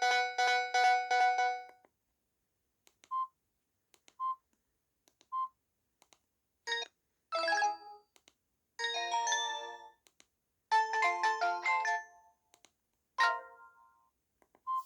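Samsung GT-E1080W phone's built-in tones played in turn through its speaker. A melody ends about two seconds in, three short single beeps follow about a second apart, then several short chiming jingles separated by silence.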